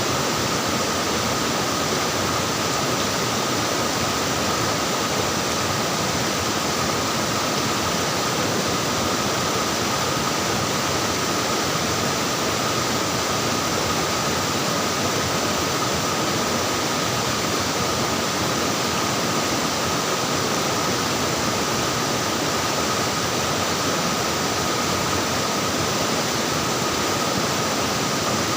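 Flowing, splashing water making a steady, unbroken rush, with a faint steady tone running through it.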